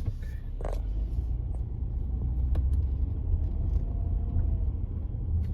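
Low, steady rumble of a car in motion, with a few light clicks and knocks.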